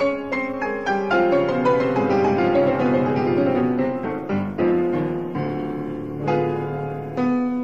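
Background piano music, a gentle run of notes and chords.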